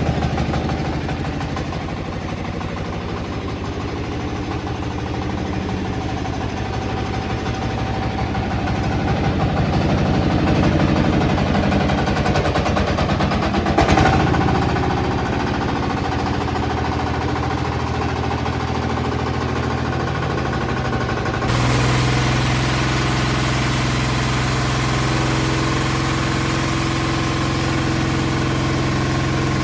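Engine-driven large horizontal band sawmill running steadily with a pulsing rhythm, and one sharp knock partway through. About two-thirds of the way in the sound changes abruptly to a steadier running with a stronger low hum.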